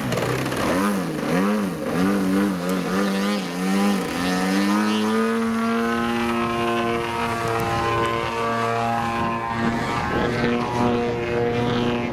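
Radio-controlled model airplane's motor and propeller whining. Its pitch rises and falls over and over for the first few seconds, then holds one steady tone.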